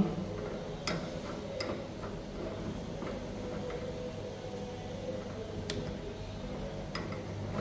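A few short, sharp clicks from a tissue block being fitted and clamped into a microtome's block holder, over a steady low hum.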